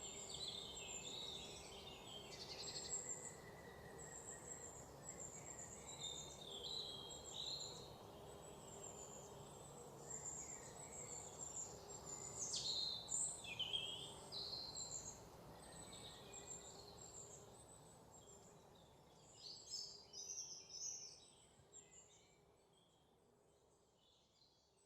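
Several forest birds singing and calling with quick chirps and trills over a faint steady background hiss, the whole recording fading out over the last several seconds.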